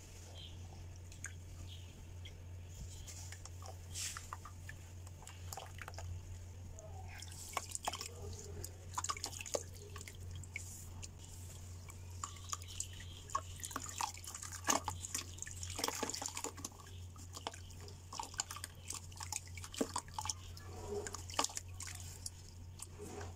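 Water and wet sand dripping and splashing into a basin of muddy water as a soaked lump of sand is squeezed and crumbled by hand. The splashes are sparse at first and come thick and fast from about a third of the way in.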